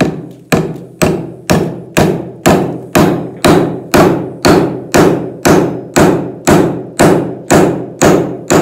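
Claw hammer driving a nail into a wooden 2x4 header, about two strikes a second at an even pace and even strength, a stiff nail that takes many blows.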